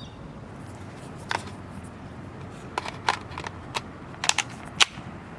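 Small plastic clicks and taps, about seven scattered over a few seconds, as the two pieces of a tiny RC transmitter are handled and fitted together.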